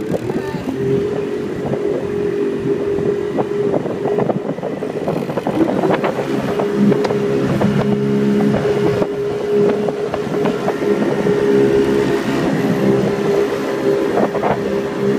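Sport Jet 90 jet-drive engine running steadily as the small jet boat moves across the water, with its pitch shifting a little. Irregular knocks and rattles run through it.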